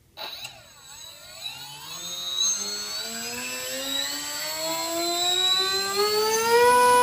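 RC plane's electric motor and propeller spinning up, the whine rising steadily in pitch and loudness for about six seconds, then holding at one steady pitch near the end at full power.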